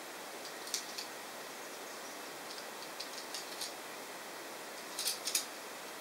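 Light clicks and ticks from a screwdriver and a laptop's CPU heatsink-and-fan assembly being handled. There are a few scattered ticks and a louder quick cluster near the end, over a steady hiss.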